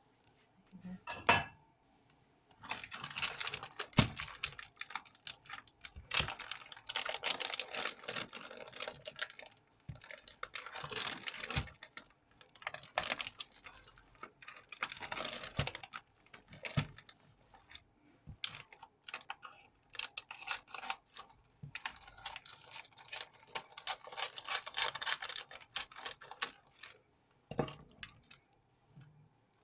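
A sharp knock about a second in, then a plastic packet of spring roll sheets crinkling and rustling in stretches as it is handled.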